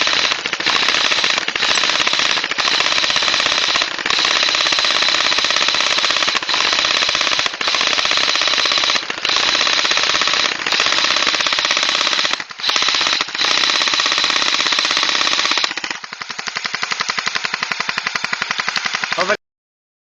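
Several airsoft guns firing on full auto into a tree: a continuous rapid rattle broken by short pauses every second or two. About sixteen seconds in the fire thins out and drops in level, then stops suddenly shortly before the end.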